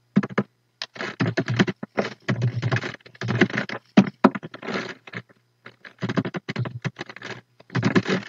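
Fast typing on a computer keyboard: quick runs of keystrokes broken by short pauses.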